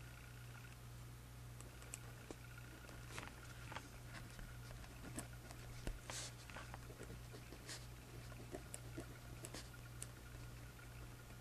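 Pen writing on paper in a journal: faint, irregular short scratches and taps. A steady low electrical hum lies underneath.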